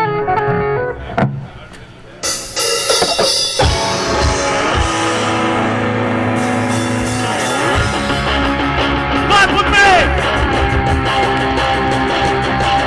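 Live rock band playing electric guitars, bass and drums through a PA. After a short lull about two seconds in, the guitars start up, and drums and then bass join in, building to the full band.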